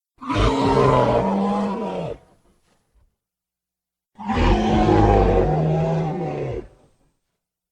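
Movie sound effect of a hadrosaur (duck-billed dinosaur) call, heard twice: two long, low, pitched calls of about two seconds each, each dropping in pitch as it ends, with silence between them.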